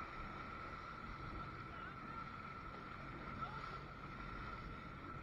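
Jet ski engines running at low speed over choppy water, with a steady whining tone and water washing around the hulls.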